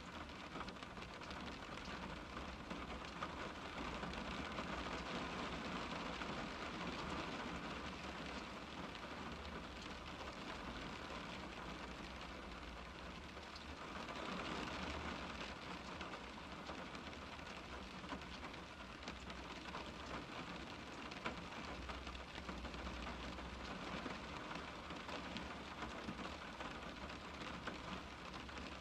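Rain pattering on a car's glass, a steady dense patter of drops that swells heavier for a few seconds twice.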